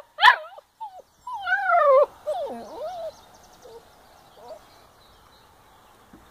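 Puppies yelping and whining: two short, sharp yelps right at the start, then a long wavering whine about a second in and a few shorter falling whimpers that die away by about three seconds.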